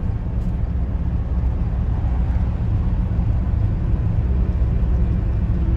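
Steady low rumble of engine and tyre noise heard inside the cabin of a Toyota driving at highway speed.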